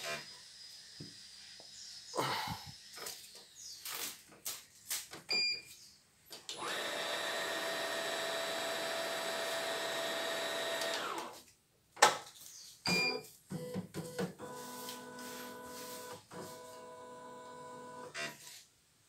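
CNY E900 computerised embroidery machine: its electric motor runs steadily for about four and a half seconds and then stops sharply. Before and after, there are short electronic beeps and clicks over a faint hum.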